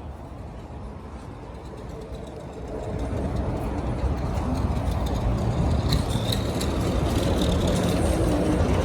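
Steady low rumble of road traffic and vehicle noise, growing louder over the first few seconds.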